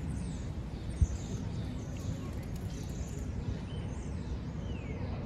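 Outdoor background ambience: a steady low rumble with a few faint, high, falling bird chirps, and a single short thump about a second in.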